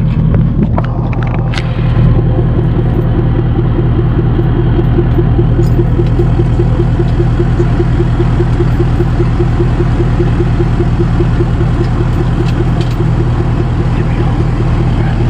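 Truck engine running steadily at an even speed, with a fast, regular pulse to its sound.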